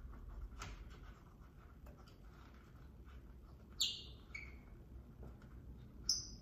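A screw being turned in by hand with a screwdriver to fix a thermostat mounting plate to the wall: faint scraping turns. Two short high chirps stand out, a falling one a little under four seconds in and another about six seconds in.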